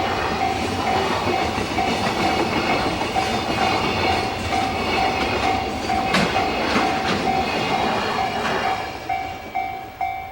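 A freight train's wagons rumbling and clattering past over a level crossing, while the crossing's warning bell rings over it about twice a second. About nine seconds in, the train noise falls away and the ringing bell is left.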